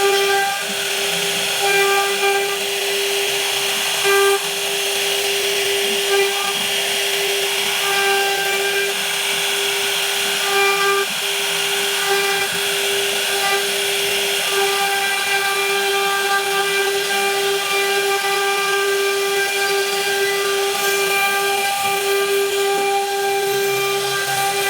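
Power-tool spindle motor, most likely a CNC router, running at a constant speed with a steady high whine over a hiss of cutting noise, swelling briefly louder a few times.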